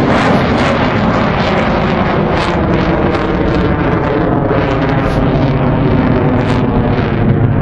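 Jet engine noise from an F/A-18 Hornet flying overhead: a loud, steady rush with a strong low rumble, mixed with wind buffeting the microphone. The higher hiss fades over the last few seconds.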